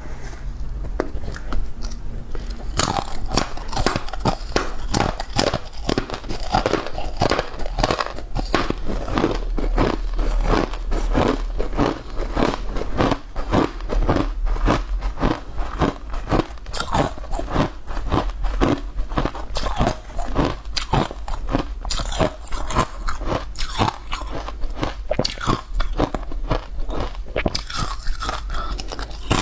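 Close-miked biting and chewing of a cake coated in green matcha powder: a dense run of quick, crackly mouth and food sounds starting about three seconds in.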